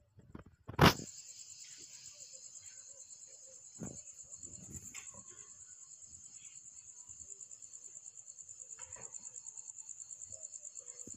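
Cricket trilling: a high-pitched, fast and even pulsing that starts suddenly just after a loud click about a second in. A few soft knocks and rustles sound under it.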